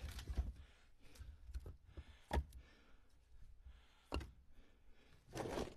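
Split pieces of seasoned red oak firewood knocking against each other as they are set by hand onto a stack in a pickup bed: a few separate wooden knocks spread out over the seconds, with a longer, noisier one near the end.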